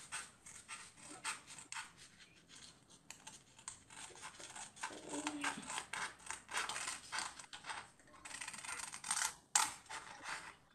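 Scissors cutting paper: a rapid, irregular run of crisp snips and paper rustle, with a louder pair of snips near the end.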